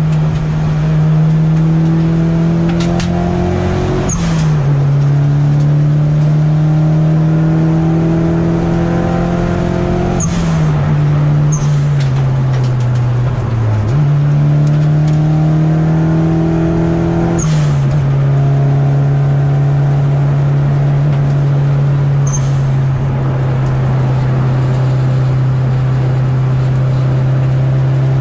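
Nissan 200SX engine heard from inside the cabin while driving: its pitch climbs slowly in gear, with gear changes about 4, 10, 14 and 17 seconds in. The pitch falls for a few seconds as the car slows, then holds steady through the last ten seconds. Short sharp sounds come at several of the gear changes.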